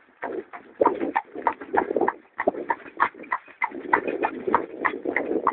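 A driving cob's shod hooves clip-clopping on a hard road at a steady trot, about four strikes a second, each with a short metallic ring. A rough lower rumble comes and goes beneath the hoofbeats.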